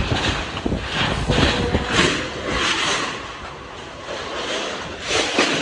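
Hurricane-force wind and heavy rain, coming in gusts that swell and ease about once a second, with a low rumble of wind on the microphone in the first few seconds; the gusts ease about three seconds in and surge again near the end.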